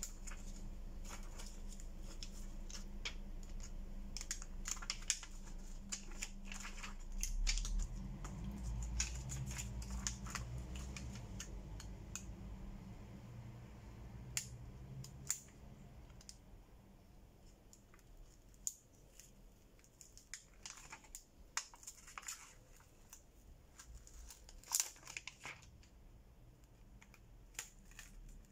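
Thin metal prying pick sliding and clicking along the glued edge of a Redmi Note 8's glass back cover as it is worked open, with scattered sharp clicks and short scrapes. A low steady hum sits under the first half and fades out about halfway.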